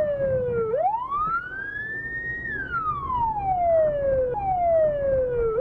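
Police siren on its wail setting, sweeping slowly up and down in pitch: it reaches its lowest point less than a second in, climbs for about a second, holds briefly at the top, then falls slowly for about three seconds and starts climbing again at the very end. A low vehicle rumble runs underneath.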